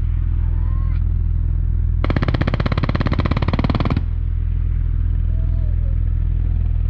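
A distant machine gun aboard an Osprey tiltrotor fires one rapid burst of about two seconds, starting about two seconds in, with live tracer rounds. Underneath is a steady low rumble.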